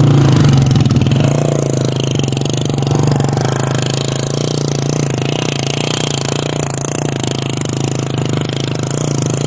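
Small motorcycle engine idling steadily, close up.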